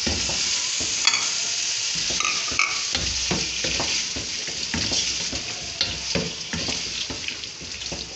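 Wooden spoon stirring taro root pieces through masala in a non-stick pot, with repeated scraping strokes over a steady sizzle of the masala frying on a low gas flame.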